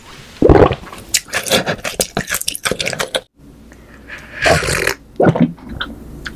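Close-miked mouth sounds of drinking from a glass: gulps and swallows with wet mouth clicks. The sound drops out briefly about three seconds in, then gulping starts again.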